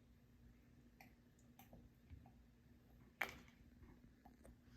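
Near silence, with a few faint clicks or taps; the loudest comes about three seconds in.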